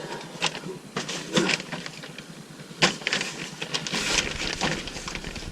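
Irregular clicks, taps and rustling of objects being handled at close range, with one sharper knock about three seconds in.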